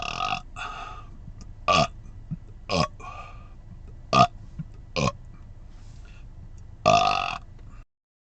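A man burping again and again: one burp trailing off at the start, four short burps about a second apart, then a longer burp near the end.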